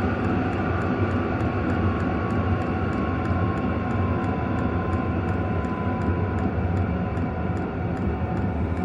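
Hcalory diesel air heater running turned up: a steady blower-and-burner roar, with the fuel pump's regular ticking a few times a second.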